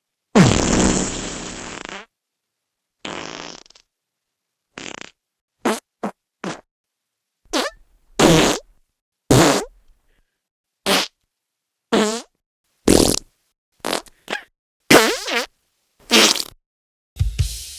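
A string of about fifteen separate fart sounds of differing length, with short silences between them; the first is the longest at about two seconds and the rest are short blasts.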